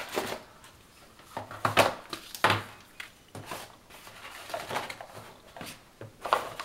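Cardboard packaging being handled: sections of a stiff cardboard box being lifted, slid and set down, with paper leaflets rustling. Scattered knocks and rustles, a few louder knocks about two seconds in and again near the end.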